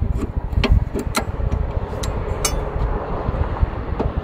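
A few sharp metal clanks and clicks, irregularly spaced, as the folding crank handle of a bumper-mounted hose roller is swung out and set in place, over a steady low rumble.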